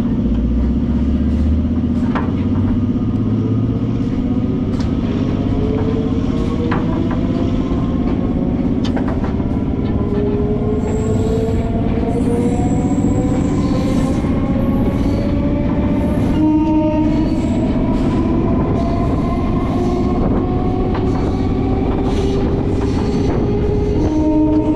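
Suburban electric train pulling away from a station and gathering speed, heard from the open doorway. Its motor whine rises steadily in pitch, with wheel clicks over the rail joints and a dense running rumble.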